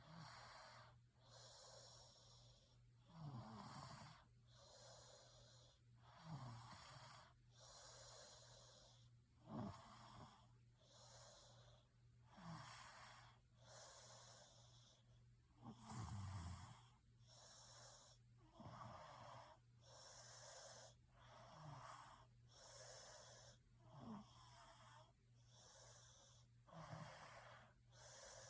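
A person snoring in an even rhythm, one breath about every three seconds. Each breath opens with a short low rasp and is followed by a breathy rush of air.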